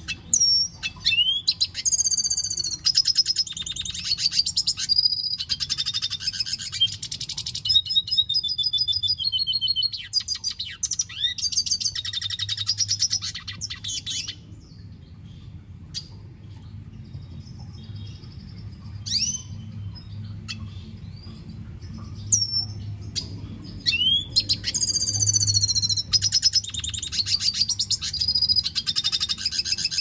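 Male red siskin singing: long, fast twittering phrases with rising whistled notes, falling into a lull of scattered notes near the middle, then singing again for the last several seconds.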